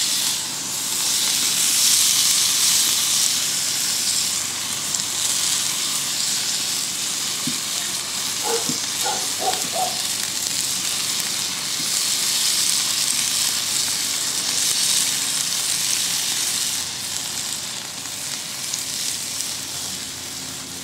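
Turkey wings sizzling on the grate of a charcoal Weber kettle grill as barbecue sauce is brushed on: a steady hiss that swells and eases, with a few short faint tones about nine seconds in.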